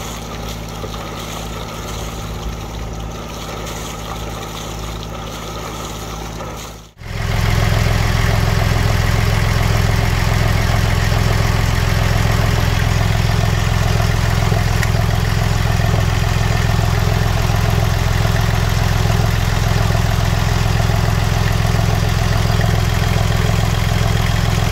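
Volvo Penta MD2030B three-cylinder marine diesel idling steadily, just started to test a newly replaced raw water pump seal. For the first seven seconds it is heard from on deck, mixed with the hiss of cooling water spouting overboard. After a sudden cut it is much louder and closer, from inside the engine compartment.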